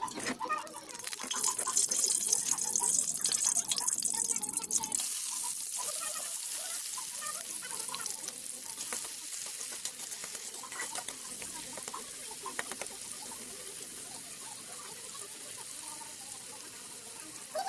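An omelette sizzling in a frying pan: a steady hiss with light crackle, strongest in the first few seconds and then slowly fading.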